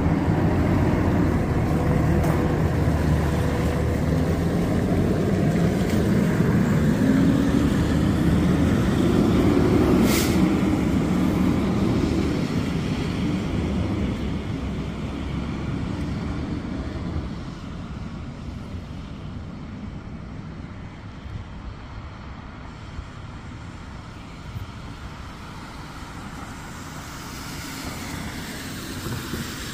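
Fire pumper truck's diesel engine running and pulling away, its note rising as it accelerates near the middle, with a short hiss about ten seconds in. The engine then fades into distant traffic as the truck drives off.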